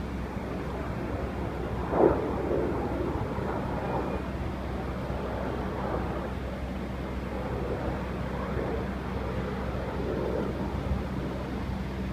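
Distant fighter jet's engine rumble, wavering and steady, over a low hum. A single sharp knock about two seconds in.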